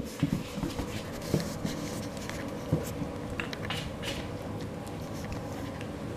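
Four-week-old standard poodle puppies scrabbling on fleece blankets and mouthing a plush toy: scattered faint scratches, ticks and rustles at irregular moments, over a steady low hum.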